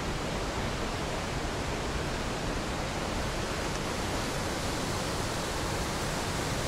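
Steady rushing of white water: the River Nevis running through its rocky gorge.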